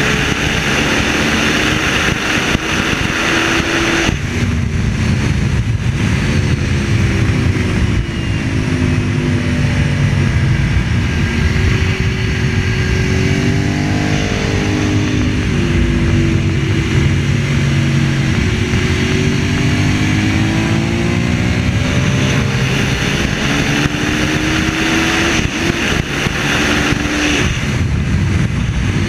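Ducati 1098's L-twin engine running hard, its pitch rising and falling again and again as the rider accelerates, shifts and shuts off, with wind rush loudest in the first few seconds.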